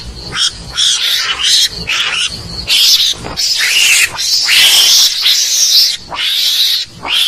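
Mongoose (garangan) calling: a rapid run of loud, raspy, high-pitched calls, several a second, merging into one longer call about four and a half seconds in.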